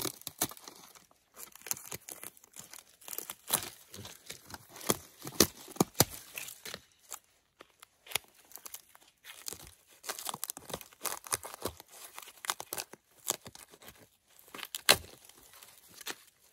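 Birch bark being cut with a knife and peeled off a fallen birch log, in irregular crackling and tearing strokes.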